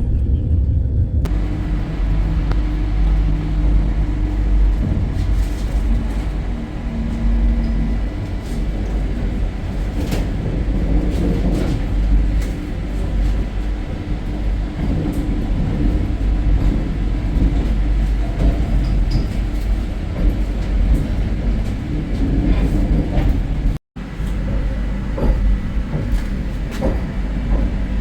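Inside a Vande Bharat Express coach while the train is running: a steady low rumble of the train set on the track, with scattered small clicks and rattles.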